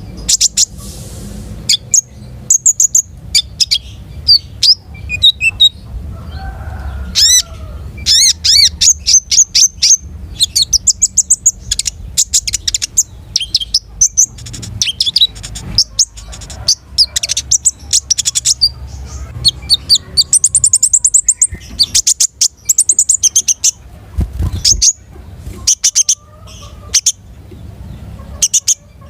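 A konin songbird singing non-stop: a fast, varied string of sharp high chirps, rapid trills and sweeping whistled notes, with hardly a pause. A faint low hum runs underneath.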